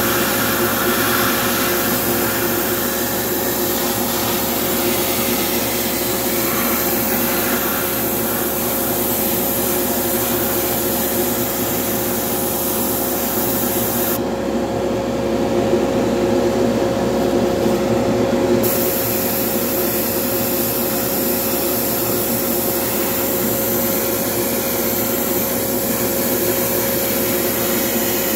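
Hobby spray booth exhaust fan running steadily with a constant hum, while an airbrush sprays black paint with a high air hiss. The hiss stops for about four seconds around the middle, then resumes.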